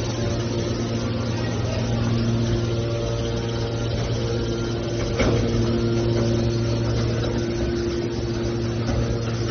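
Hydraulic metal shear baler's power unit running with a steady hum; its upper tones drop out briefly twice. One sharp knock a little past halfway.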